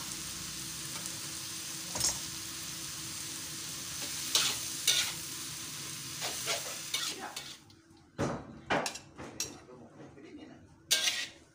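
Water spinach sizzling as it is stir-fried in a metal wok, with a metal spatula scraping and knocking against the pan. About two-thirds of the way through the sizzle drops away, leaving separate clinks and knocks as the greens are scooped out.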